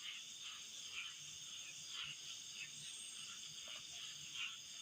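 Night insects, crickets among them, chirring steadily in several high tones, with faint scattered clicks and ticks.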